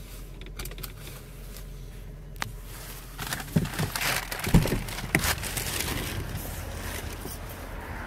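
Low steady hum of the car idling, then from about three seconds in rustling and crinkling handling noise with several knocks as the phone is moved around the cabin.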